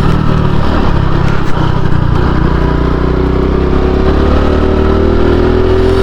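Honda Pop 110i's small single-cylinder engine running steadily under way, its pitch rising slightly near the end, with a short knock about a second and a half in. Under it runs the strange noise from the front, which the rider likens to a fishing reel winding back and suspects comes from bent rims.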